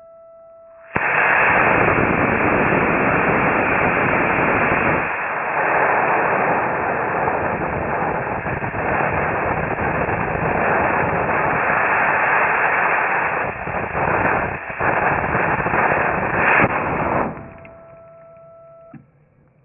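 Estes B6-4 black-powder solid rocket motor firing in a static test stand, slowed to quarter speed: a loud, even rushing noise that starts suddenly about a second in and fades out some sixteen seconds later. A steady high beep tone sounds before ignition and again after the noise dies away.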